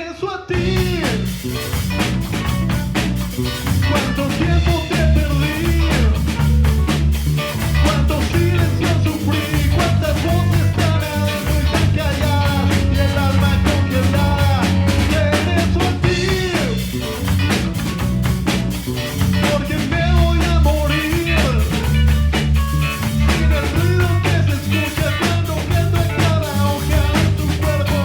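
A live rock band playing a song: a drum kit, bass and guitar, with a sung lead vocal over it.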